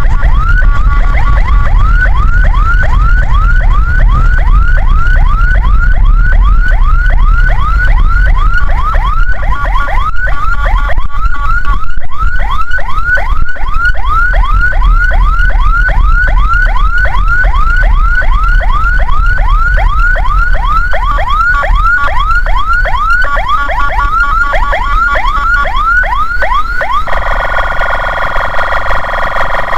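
Ambulance electronic siren sounding a fast repeating falling sweep, about three a second, that switches near the end to a steady buzzing horn tone. A low rumble runs underneath.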